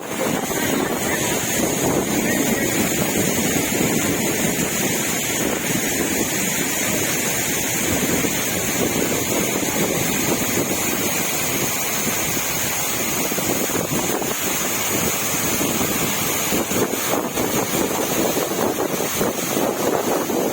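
Waterfall's falling water rushing steadily, with no change through the stretch.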